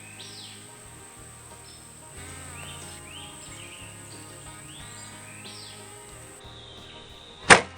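Background music over a steady high-pitched insect drone, with a single sharp, very loud crack about seven and a half seconds in.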